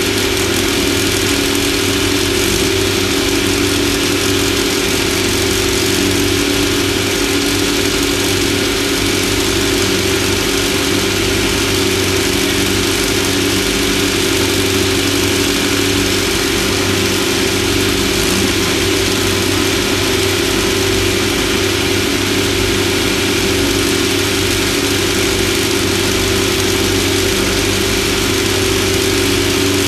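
Off-road race vehicle's engine running at a steady speed, a constant drone that holds its pitch, with an even hiss over it.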